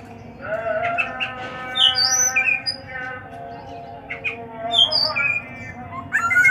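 Black-naped oriole (kepodang) calling, with harsh squawks and a loud sharp call near the end, over steady chirping and whistling birdsong. A sustained pitched sound holds for about three seconds, starting about half a second in.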